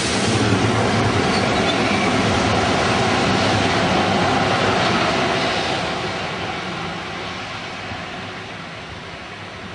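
Freight train tank wagons rolling past close at speed, a steady rushing rumble of wheels on rails that fades gradually after about six seconds as the train draws away.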